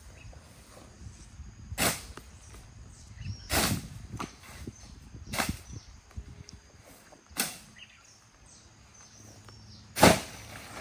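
A foice (long-handled brush hook) being swung into tall weeds and grass. Five swishing cuts come about two seconds apart, the last a little later than the rest.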